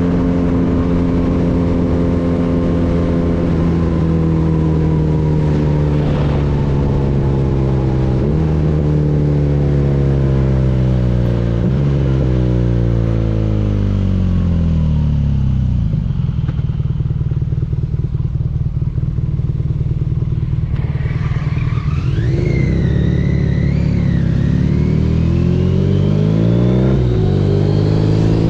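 BMW R nineT boxer-twin engine through an Akrapovič exhaust, slowing with several downshifts as its pitch falls, running low and steady for a few seconds, then accelerating again with a gear change near the end. A brief high wavering whine sounds over it about two-thirds of the way in.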